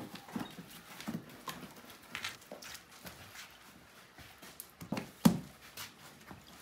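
Hands patting, pressing and handling flatbread dough on a wooden table: irregular soft pats and knocks, with one louder low thump about five seconds in.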